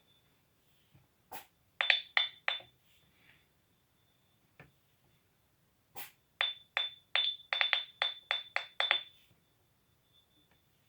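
Twin-T oscillator circuit on a Maxitronics 300-in-1 electronic kit making metallic hammer strikes on a pipe, each with a short bell-like ring. Three strikes come about two seconds in, then a quick run of about a dozen about six seconds in. A faint high tone hangs between them because the circuit is set just short of oscillating.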